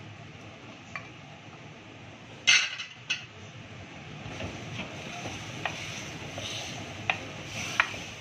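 Chopped tomatoes tipped from a glass bowl into a clay pot of frying mutton mince, with a loud clatter about two and a half seconds in and a smaller one just after. Then a wooden spoon stirs the mince, knocking sharply against the clay pot a few times.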